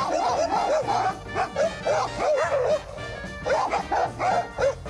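Dogs barking in rapid runs of short, high barks, with a break of under a second between runs, over background music.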